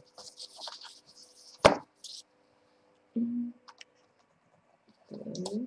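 Paper rustling and sliding on a work table, then one sharp knock about one and a half seconds in, like a ruler or tool set down on the table. Brief low murmurs follow later.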